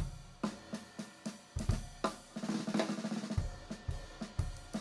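Jazz drum kit played live, with snare, bass drum, hi-hat and cymbal strokes about three to four a second. Low bass notes sound underneath now and then.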